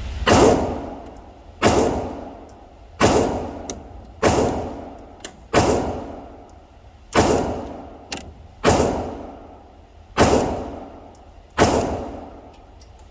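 Glock 43X 9mm pistol firing slow, deliberate single shots. About nine loud reports come roughly one and a half seconds apart, each with a ringing, echoing tail.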